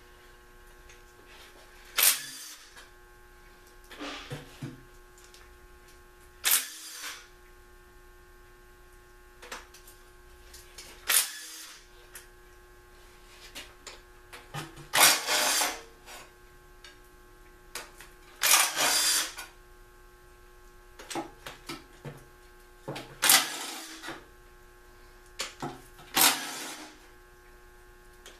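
Cordless impact wrench run in about seven short bursts, spinning out the oil pan bolts on a 1956 Packard engine, with light clinks of metal between bursts.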